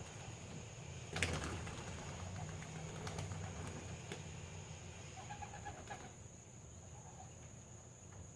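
Young homing pigeons' wings clattering and flapping, with a sudden loud burst of wingbeats about a second in that trails off over the next few seconds. A few short pigeon calls come near the middle.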